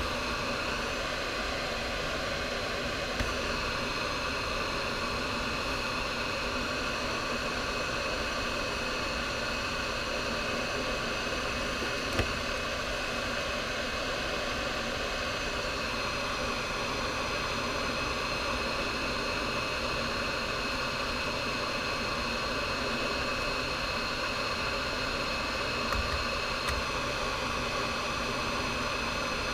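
Hot air rework gun of a Yofuly 938BD-II station blowing a steady hiss of hot air, with a faint high fan whine, while heating a MOSFET to desolder it. A few faint ticks sound over it, about 3, 12 and 26 seconds in.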